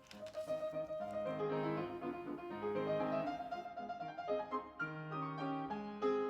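Background piano music, a steady flow of notes over held bass notes.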